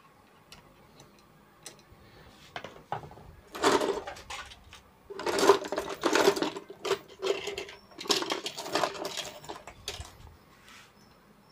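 Small hard objects, likely tools and metal parts, clattering and rattling in three bursts as they are rummaged through on a workbench.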